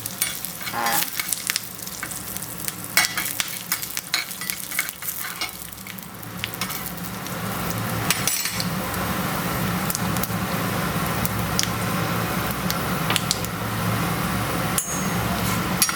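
Tempering (tadka) sizzling in hot oil in a small pan: mustard seeds, cumin, dals and curry leaves crackling, with many sharp pops over a hiss in the first few seconds. About six seconds in the sizzle grows louder and denser, with a steady low hum beneath it.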